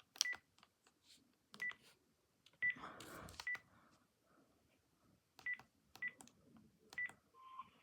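Key presses on a Panasonic KX-PRW120 cordless phone, each a click with a short high beep, about seven in all at uneven intervals. A brief, lower steady tone sounds near the end.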